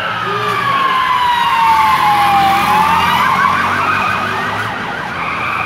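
Police siren sounding: a long wailing tone that slides down for a couple of seconds and then back up, switching about three seconds in to a fast warbling yelp.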